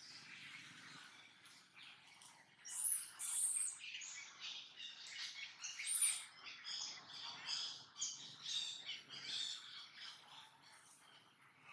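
Pet monkey making a run of short, high-pitched squeaks and chirps, loudest about three and six seconds in.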